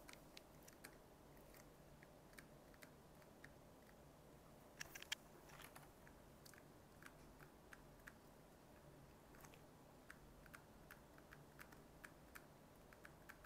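Faint, irregular light taps and clicks of a stylus writing on a screen, over quiet room tone, with two slightly louder clicks about five seconds in.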